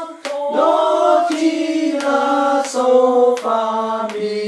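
Voices singing the diatonic major scale downward in sol-fa syllables. Each note is held for under a second before stepping to the next lower one.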